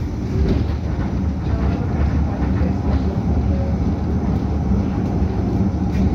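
1976 Düwag GT8 articulated tram running between stops, heard from inside the passenger saloon: a steady low rumble of the wheels and bogies on the track, with light rattling.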